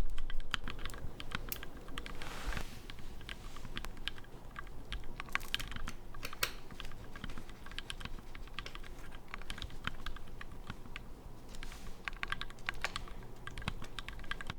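Typing sound test on a Tofu 60 custom mechanical keyboard with lubed Gateron Milky Yellow linear switches and clone GMK Olivia keycaps: a continuous, uneven run of key clacks.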